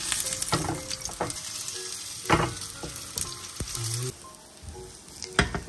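An okonomiyaki pancake sizzling as it fries in oil in a nonstick frying pan, with a spatula scraping and knocking against the pan a few times. The sizzle drops away about four seconds in.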